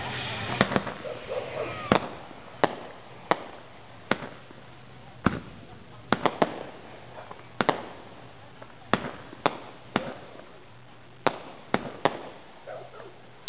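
Fireworks going off: about eighteen sharp bangs at irregular intervals, some in quick pairs or triples, as aerial shells burst. Crowd voices can be heard under the first few bangs.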